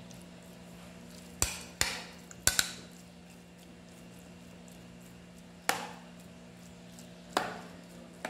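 Metal spoon clinking against a baking pan while spreading shredded chicken filling: about seven sharp clinks at irregular intervals, each with a short ring, two close together near the start and the others spread out.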